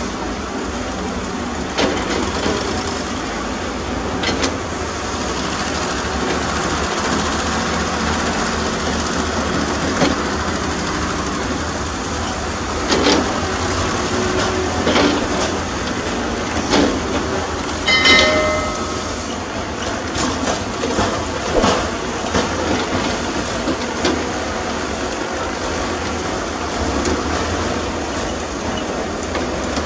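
Heavy earthmoving machinery running steadily, with the diesel engines of excavators and dump trucks at work, broken by scattered clanks and knocks and one brief squeal a little past halfway.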